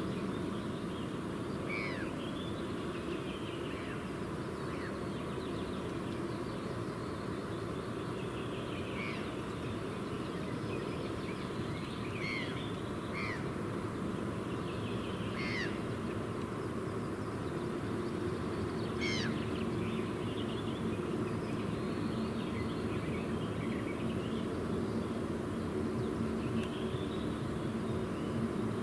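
Birds calling now and then, short chirps scattered over a steady low background rumble. A low droning hum comes in about two-thirds of the way through and grows slightly louder toward the end.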